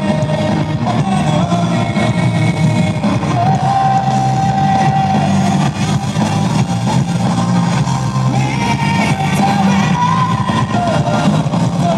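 Live rock band playing, with a singer holding long sung notes over guitars and drums.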